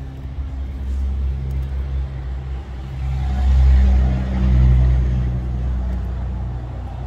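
Motor vehicle engine running steadily with a low rumble, getting louder around the middle and easing off again.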